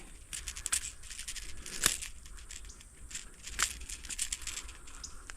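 Close handling noise: scattered crinkling clicks and rustles, with sharper clicks about a second in, near two seconds and again a little past three and a half seconds.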